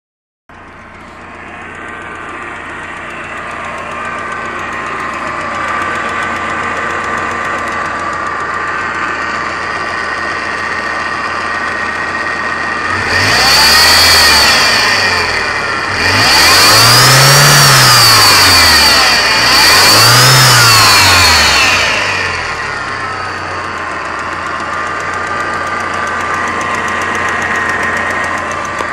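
Ford Escort engine idling with a steady hum and whine, revved up three times about halfway through and settling back to idle. The hum comes from a failing water pump, which the owner had first taken for the power steering pump.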